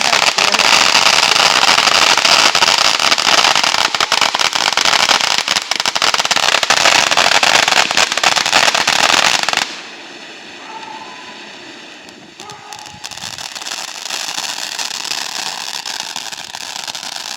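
A consumer firework crackling and hissing with a dense stream of rapid pops. It cuts off abruptly about ten seconds in, leaving a much quieter background.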